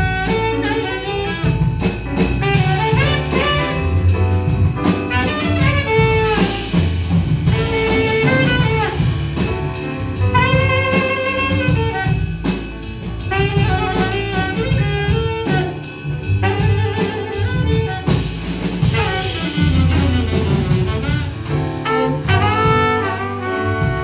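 Live jazz band: an alto saxophone solo in quick melodic runs over double bass, piano and a drum kit with cymbals.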